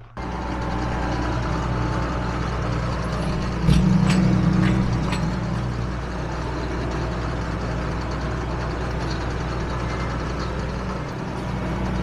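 Tractor engine running steadily under load, heard from inside the cab while it pulls a round baler, with a louder surge and a few clicks about four seconds in.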